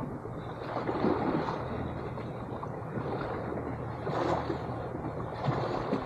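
Shallow seawater sloshing and churning around a camera held in the sea, heard muffled from in the water, with irregular surges as small waves move past.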